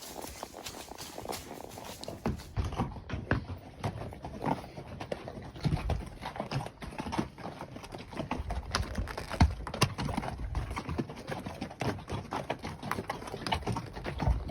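Horse's hooves striking the ground, an irregular run of clip-clop knocks and thuds that grows busier about two seconds in.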